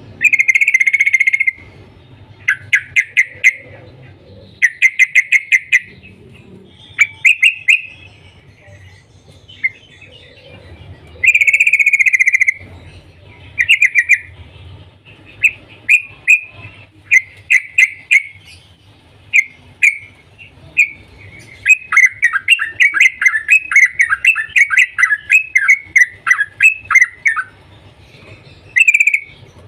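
Yellow-vented bulbul (trucukan) singing in short bursts of rapid notes separated by brief pauses, ending in a longer fast run of about five notes a second.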